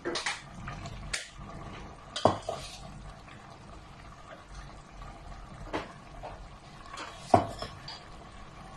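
A spoon clinking against a steel bowl and the metal pressure cooker pot as chopped pechay is added: about six sharp clinks, the two loudest about two seconds and seven seconds in.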